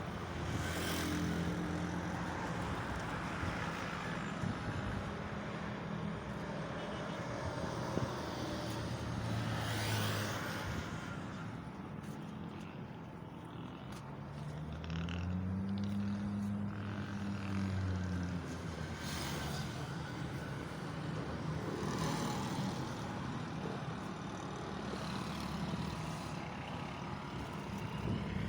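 A car engine running at low speed, with one rise and fall in pitch a little past the middle, over steady background noise.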